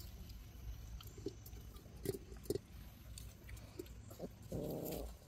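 Central Asian Shepherd puppies eating from stainless steel feeding bowls: scattered small clicks, smacks and taps. A short rough grunt, about half a second long, comes near the end and is the loudest sound.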